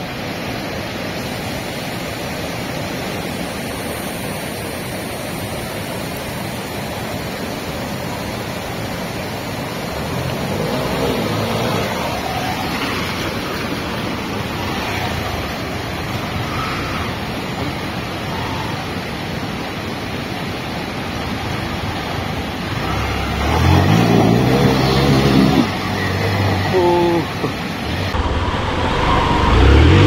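Steady rush of a rocky mountain stream. From about a third of the way in, a motorcycle engine running can be heard over the water, loudest near the end.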